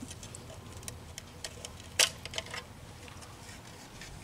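Scattered light clicks and taps from handling a plastic rain gauge and from footsteps on wet, gritty ground. One sharper click comes about two seconds in, with a couple of smaller ones just after.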